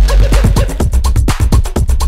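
Background music: upbeat electronic dance music with a fast steady beat and heavy bass.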